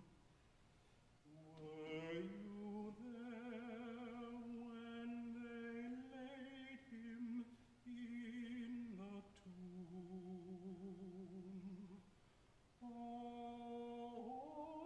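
A man singing solo and unaccompanied, holding long notes with vibrato, phrase by phrase, with short pauses for breath about a second in and again near the end.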